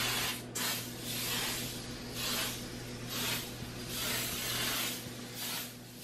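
Aerosol can of foaming oven cleaner spraying with a hiss, first in one continuous spray and then in a string of short bursts about a second long.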